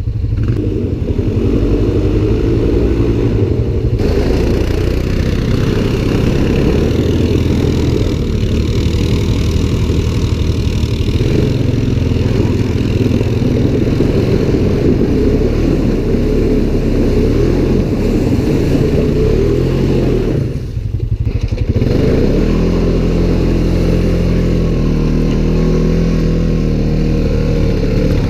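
Off-road vehicle engine running under throttle, its level dropping briefly about three quarters of the way through and then running more evenly.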